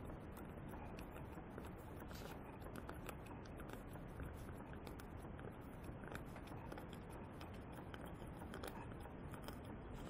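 Model live-steam beam engine running with its flywheel turning: faint light clicking over a steady low hiss.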